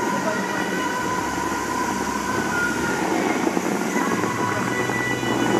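Steady rush of a large musical fountain's water jets spraying, with the show's music playing over loudspeakers in long held notes.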